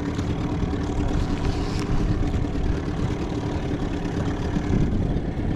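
Boat engine running steadily, a constant low drone with a held hum.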